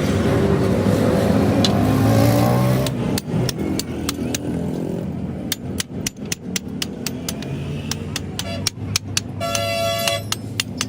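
Road traffic: a vehicle engine rising in pitch for the first few seconds, then a run of sharp, irregular knocks, and a short horn honk near the end.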